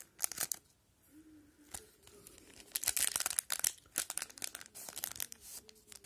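Plastic wrapper of a hockey card pack crinkling and tearing as it is opened and the cards are pulled out, in irregular bursts of crackle that are loudest about three seconds in.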